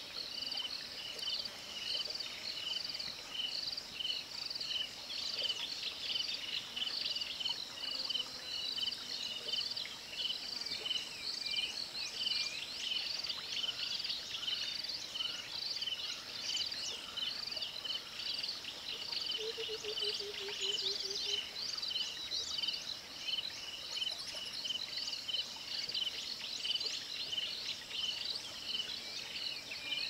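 Outdoor natural ambience: a steady chorus of high chirping calls repeated in a regular pulse, with a short run of low hooting notes about twenty seconds in.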